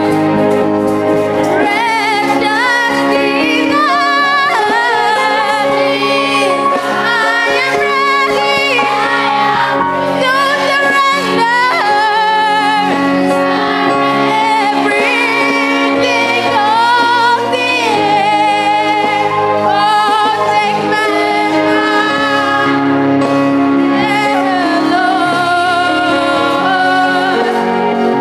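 Worship song: a singing voice with vibrato over held accompaniment chords.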